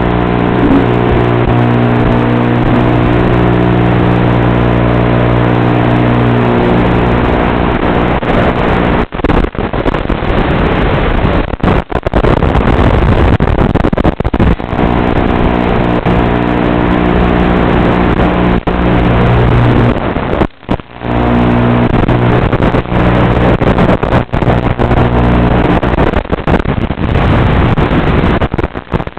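FPV quadcopter's brushless motors and propellers, heard from the craft itself: a steady multi-toned whine that turns rougher and noisier in the middle, with several brief sudden drops as the throttle is cut and picked up again.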